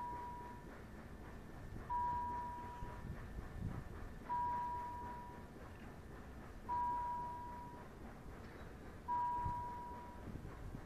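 Level-crossing warning signal: a single electronic bell-like tone, struck about every two and a half seconds and fading after each strike, sounding as the barriers lower for an approaching train.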